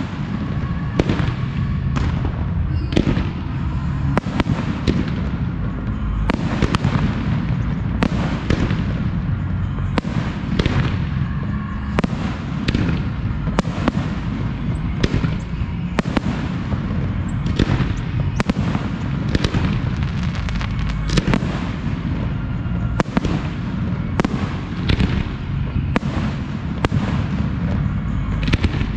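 Professional display fireworks going off in rapid succession: sharp shell bursts about one to two a second over a continuous low rumble of launches and booms.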